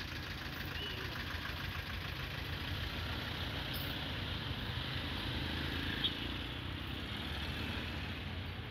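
Vehicle engines idling with street traffic: a steady low rumble.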